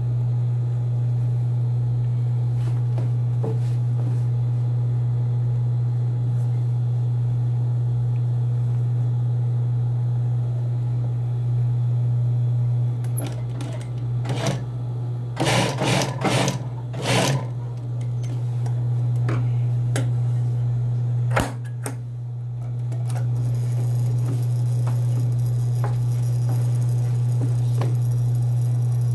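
Industrial sewing machine's motor humming steadily, with a few short, loud bursts of stitching about halfway through and a sharp click a few seconds later.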